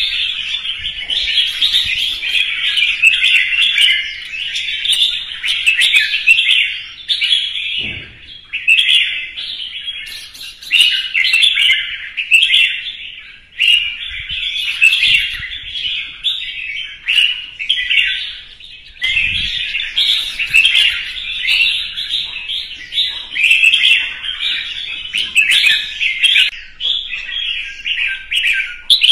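Red-whiskered bulbul singing its competition song: a fast, almost unbroken run of bright, chattering whistled phrases, pausing only briefly a few times.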